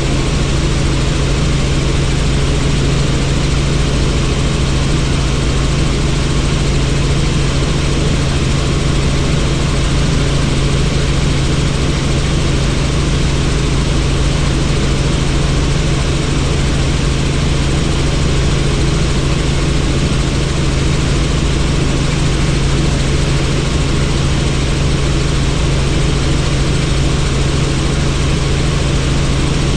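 Helicopter in flight, heard from aboard: a steady, loud drone of rotor and engine, a strong low hum under an even rushing noise, with no change in pitch or level.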